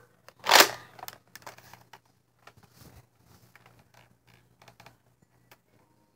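A toy dart blaster being handled and loaded: a short loud rustle about half a second in, then scattered small plastic clicks and rustles.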